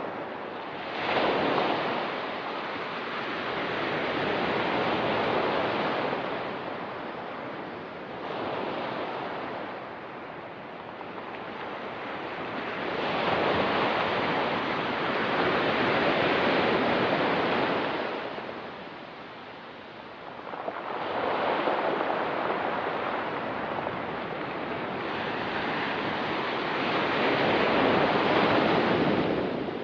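Ocean surf on a rocky beach, waves rushing in and falling back in slow swells every several seconds.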